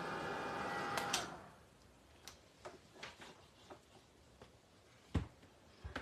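Ranger Heat It craft heat tool blowing with a steady whir as it melts embossing glaze, switched off with two clicks about a second in. Light ticks and one heavier thump follow near the end as things are handled on the table.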